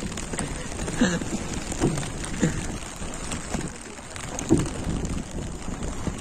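Steady rain falling on an open fishing boat and the sea around it, with a few brief, faint calls from the crew.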